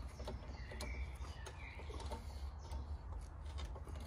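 Quiet outdoor ambience: a steady low rumble with faint scattered clicks and light taps, and two faint short chirps about a second in and a second and a half in.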